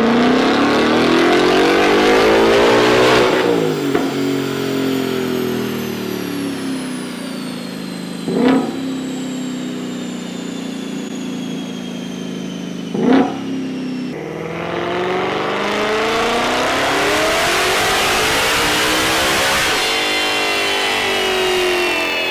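High-performance car engine revving: the engine note climbs and falls, settles to a steady run broken by two short, sharp throttle blips, then climbs and falls again. A thin high whine slowly drops in pitch behind it.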